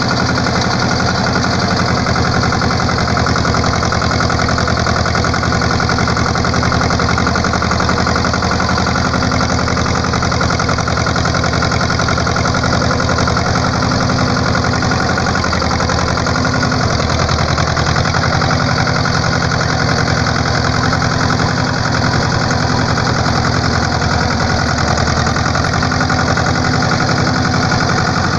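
An engine running steadily, with a low, even hum.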